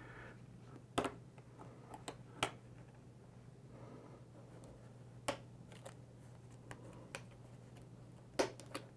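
Scattered small plastic clicks and snaps as a plastic pry tool works the wireless charging coil's plastic cover loose from a smartphone's frame, about eight sharp clicks spread through, over a faint steady hum.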